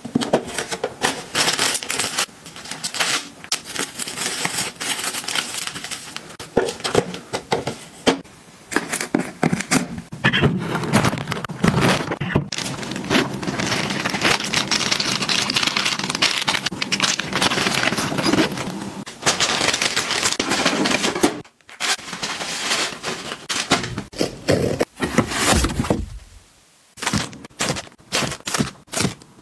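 Plastic-wrapped packs of tissues and wet wipes crinkling and rustling as they are handled and stacked, among taps, clicks and scrapes of household items. The sound drops out abruptly twice near the end.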